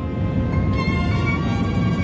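Airbus A321 cabin noise on approach: a steady low rumble of engines and airflow, overlaid by a cluster of steady ringing high tones that switches to a new, brighter set about three-quarters of a second in.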